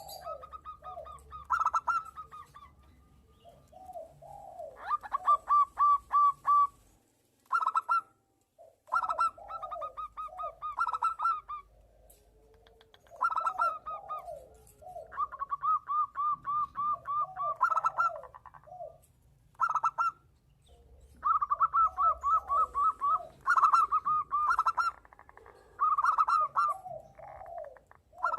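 Zebra doves (perkutut) cooing back and forth: bouts of quick, evenly repeated high notes, with lower, rolling coos between them and short pauses between bouts.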